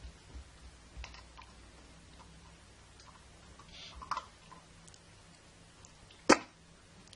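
Sussex Spaniel puppy eating dry kibble from a stainless steel bowl: scattered small crunches and clicks of kibble against the bowl, with one loud sharp knock about six seconds in.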